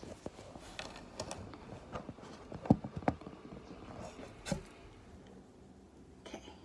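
Phone being handled and positioned close to its microphone: rubbing and scuffing with a few sharp knocks, the loudest two coming about two and a half and three seconds in, another about four and a half seconds in.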